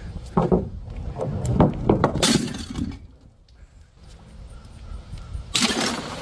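Glass bottles breaking: a run of cracking, crunching impacts through the first two and a half seconds, then, after a short lull, a louder burst of shattering near the end.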